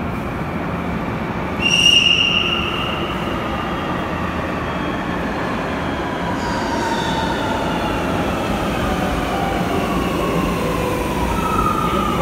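Electric light-rail train arriving at an underground station: a steady rumble with a loud high tone lasting about a second near two seconds in, then whining tones that slowly fall in pitch as the train slows.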